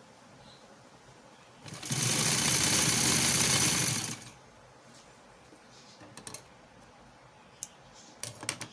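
Sewing machine running in one burst of fast stitching for a little over two seconds, sewing the hem of a trouser leg. A few light clicks follow near the end.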